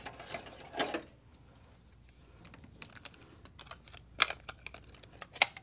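Small plastic clicks and rattles of a tool-less plastic drive sled being pulled from a PC drive bay and snapped onto a 3.5-inch hard drive, with a few sharper clicks near the end.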